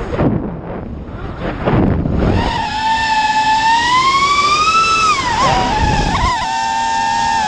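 FPV racing quadcopter's Emax 2306 2750KV brushless motors whining with the propellers, heard close up from the onboard camera. The whine drops away at the start into a brief fluttering rush as throttle is cut for a flip. It comes back about two seconds in, rising and falling in pitch with the throttle, and wavers briefly near the end.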